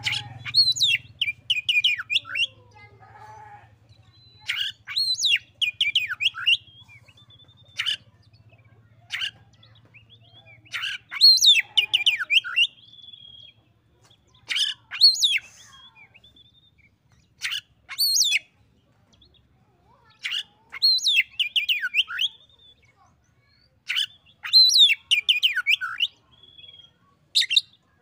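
Oriental magpie-robin singing: short phrases of whistles and quick runs of notes, with a pause of a second or two between phrases, about eight in all.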